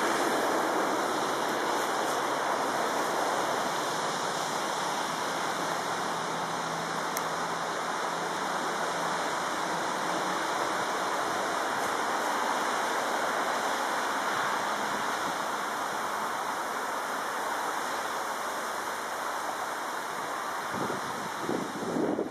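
Steady rush of passing motorway traffic, tyre and engine noise blended into one continuous roar. A louder swell near the end comes from a car passing close.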